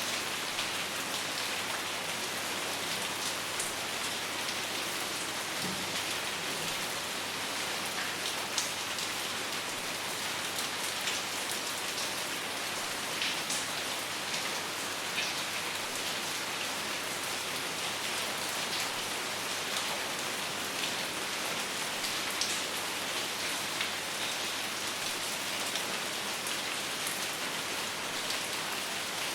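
Steady rain falling: an even hiss, with many individual drop hits ticking through it at irregular moments.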